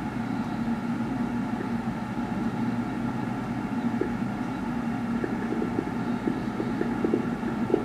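Fireworks display heard through a television's speaker: a steady, muffled low din, with a quick run of dull bangs starting about five seconds in.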